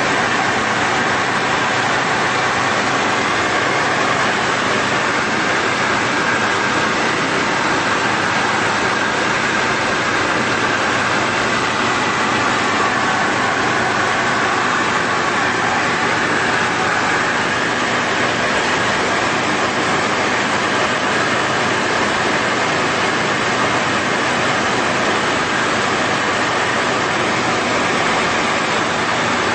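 Cabin noise of a Tecnam Sierra light aircraft in flight: its Rotax 912 flat-four engine and propeller drone steadily, under a constant rushing of air.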